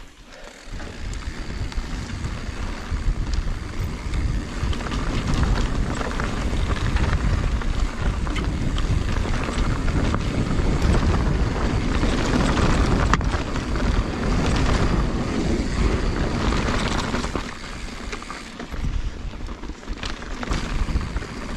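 Wind buffeting a GoPro action camera's microphone as a mountain bike rides fast along a dirt singletrack, with tyre noise and small rattles on the loose surface. It is a steady rumbling rush that eases briefly near the end.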